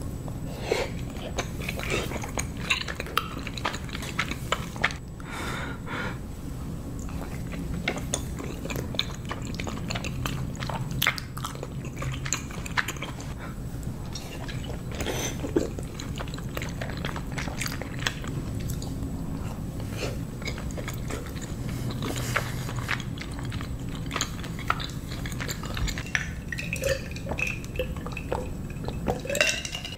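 Close-miked chewing and biting of soup dumplings (xiaolongbao), with many small mouth clicks and smacks. Near the end come swallows of a drink from a glass.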